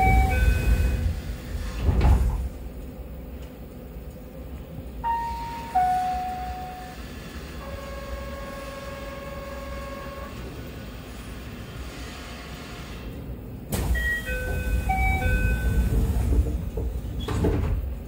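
Keihan 13000 series train's double doors sliding open with the door chime playing, ending in a thud as they finish opening. While they stand open a few short tones sound, then the door chime plays again and the doors slide shut, closing with a thud near the end.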